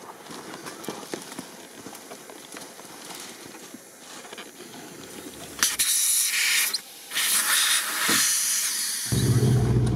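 Air hissing out of a large off-road tyre as its valve stem is pressed to deflate it, in two pushes with a short break between; the tyre is being aired down to a lower pressure for off-road driving. Near the end a vehicle engine is heard running steadily from inside the cabin.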